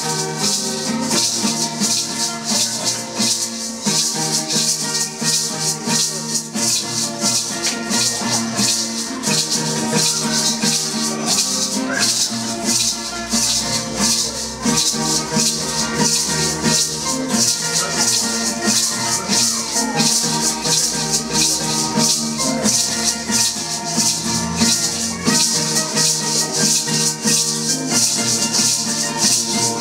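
Traditional Chiapas highland ceremonial music: a hand rattle shaken in a steady, rapid rhythm over a plucked wooden harp and guitar.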